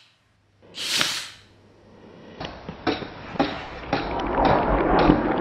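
A short swoosh about a second in, then construction-site sound: irregular sharp hammer blows and clanks on steel over a low rumble that grows louder near the end.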